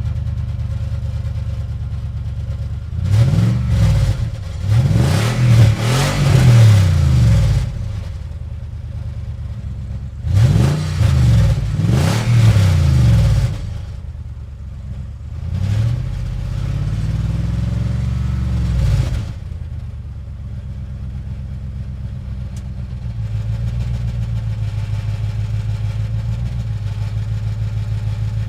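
Car engine pulling away and accelerating through the gears, its pitch climbing and dropping back at each shift several times, then settling into a steady drone at cruising speed.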